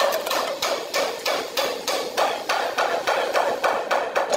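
A steady run of sharp knocks, evenly spaced at about three a second.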